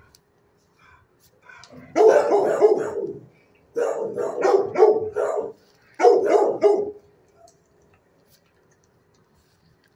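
A dog barking in three quick volleys of several barks each, starting about two, four and six seconds in.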